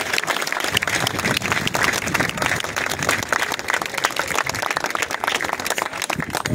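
Crowd applauding, a dense, steady clatter of many hands clapping.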